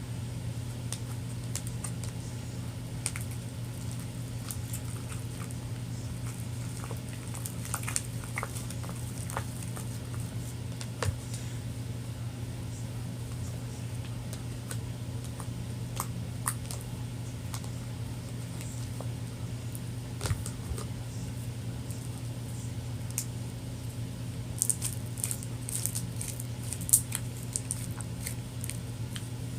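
Glue slime being stirred and worked after activator is added: scattered sticky clicks and squishes, with a denser run of sharp clicks near the end, over a steady low hum.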